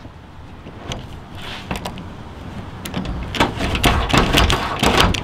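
Hand rivet-nut tool being squeezed to set a rivet nut in a hole in a car's hood: a run of metal clicks and clunks that grows louder and busier over the last couple of seconds.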